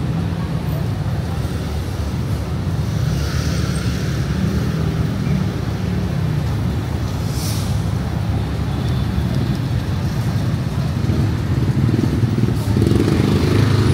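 City street traffic: a steady low rumble of passing motor vehicles, with a brief hiss about seven and a half seconds in.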